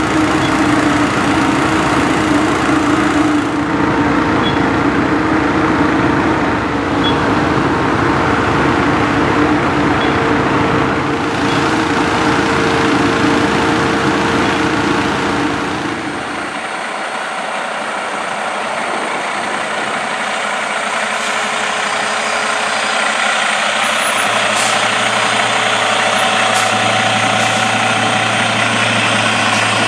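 Fire engine running at the fire scene, a steady engine drone with a mechanical whine. About sixteen seconds in it cuts to the diesel engine of a heavy rescue truck idling with a low, steady hum, with a few light clicks.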